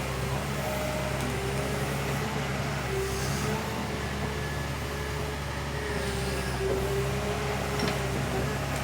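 Backhoe diesel engine running steadily, with a faint wavering whine above the engine hum.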